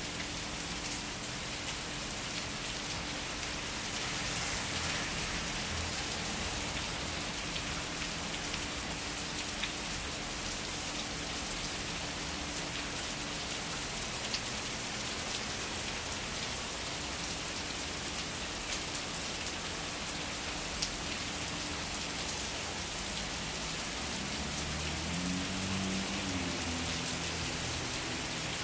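Heavy rain falling steadily on the street, an even hiss of drops with a few sharper single drips now and then. A faint low drone rises and falls briefly near the end.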